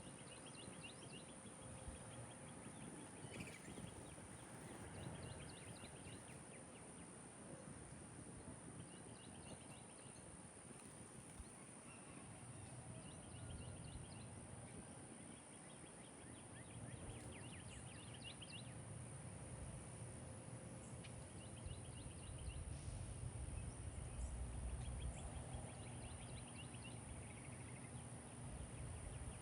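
Songbirds in the background giving short series of quick, high chirps, repeated every few seconds. Under them runs a steady faint high whine and a low rumble that grows louder in the second half.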